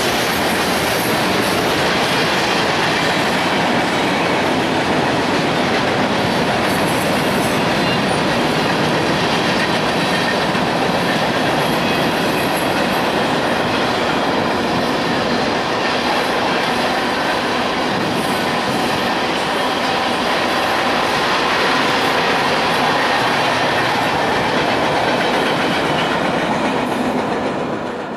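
Freight cars of a mixed manifest train, covered hoppers and tank cars, rolling past: a steady noise of steel wheels running on rail. It fades out abruptly at the very end.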